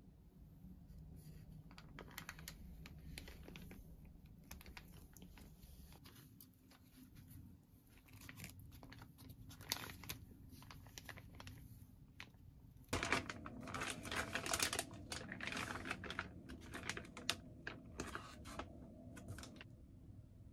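Quiet kitchen handling: light clicks and crinkling of a plastic zip bag of cooked chicken. From about thirteen seconds in come louder, quicker clicks and taps as the chicken is sliced with a knife on a plastic cutting board.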